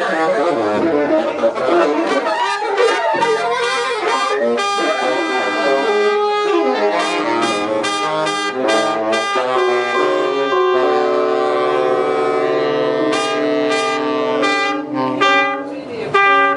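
A small ensemble with saxophone and brass playing a piece: quick changing notes, a held chord around the middle, then short repeated stabs near the end.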